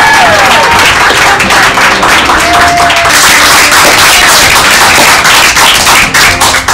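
A small group cheering and clapping fast, with high shrieks falling in pitch at the start.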